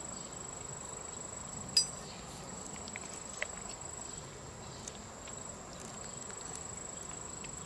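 Steady high-pitched insect drone, with a sharp click about two seconds in and a couple of fainter ticks later.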